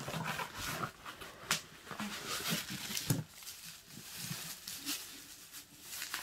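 Bubble wrap rustling and crinkling as it is handled and pulled off a wrapped object, with scattered sharp crackles.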